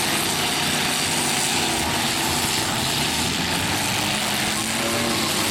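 Engines of several demolition derby pickup trucks running hard at once, a loud steady roar.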